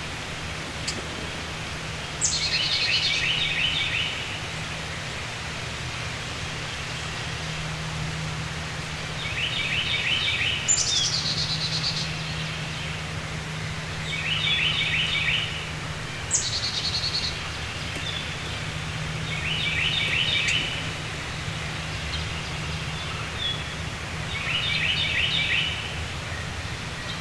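Songbirds singing short phrases every few seconds: a high note dropping into a fast stutter, and a run of rapid buzzy trilled notes, over a steady low hum.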